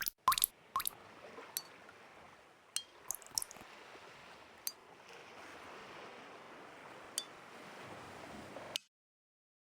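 Sharp glassy clinks, about a dozen scattered through, over a steady watery hiss that cuts off suddenly near the end.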